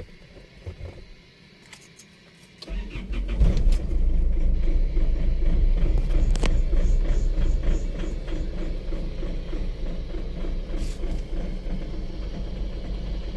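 Isuzu Alterra's 3.0-litre 4JJ1 diesel engine starting about two and a half seconds in, then idling. The mechanic says it is still running unevenly, a sign that the fault remains after the camshaft position sensor wiring repair.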